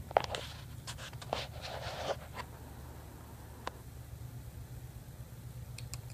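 Kitten scrabbling on woven couch fabric: a cluster of short scratching and rustling sounds in the first two and a half seconds, then a single sharp tick a little before four seconds, over a steady low hum.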